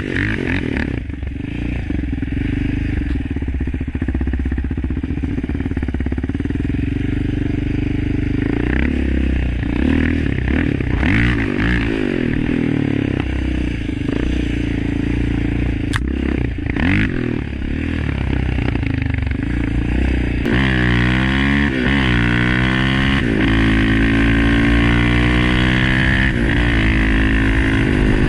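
Yamaha Raptor 700's single-cylinder engine running loud through an Alba Racing full exhaust system with ECU tune. Its pitch rises and falls repeatedly in the last third as it is revved up and down.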